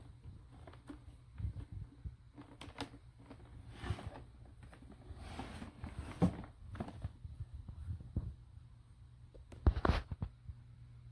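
Scattered clicks, rustles and light knocks of objects being handled over a steady low hum, with a louder double knock about ten seconds in.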